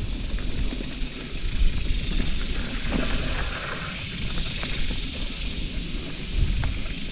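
Full-suspension mountain bike rolling along a dirt trail: a steady low rumble of tyres and wind, with a few brief knocks and rattles from the bike going over bumps.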